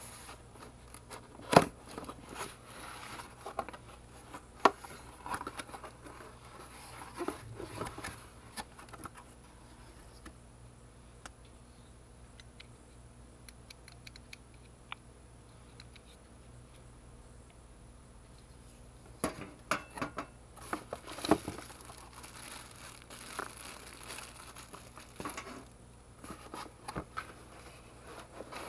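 Cardboard box and packaging being handled and unpacked: scattered knocks, scrapes and crinkling, with a quiet stretch in the middle. The loudest is a sharp knock about a second and a half in.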